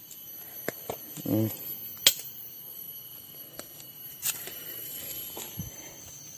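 A few sharp clicks and taps from a wooden stick being scraped clean and handled, the loudest about two seconds in, over a steady high-pitched whine.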